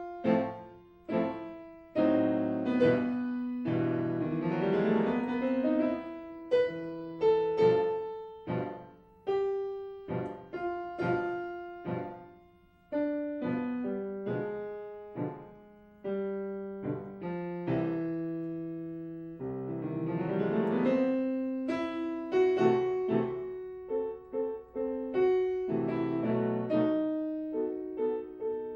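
Solo piano music of single notes and chords, each dying away, with two rising runs.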